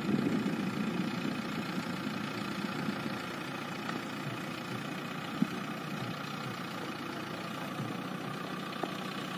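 JCB 3DX backhoe loader's diesel engine running steadily, a little louder in the first second, with a single sharp knock about halfway through.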